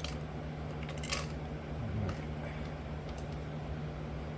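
Light metallic clicks and clinks of motorcycle clutch parts being handled, with the two sharpest near the start and about a second in, over a steady low hum.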